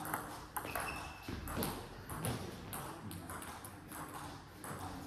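Table tennis balls clicking off bats and tables during a rally, an irregular series of sharp taps.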